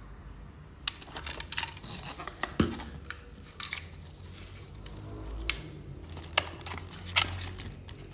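Unboxing handling noise: clear plastic bags crinkling and rustling, with irregular sharp clicks and light knocks as cables and parts are lifted out of a cardboard box.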